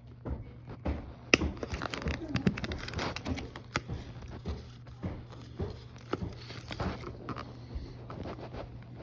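Cardboard and plastic toy packaging being handled and pulled apart: irregular clicks, taps, scrapes and crinkling as a diecast monster truck is worked out of its box, with a sharp snap about a second and a half in.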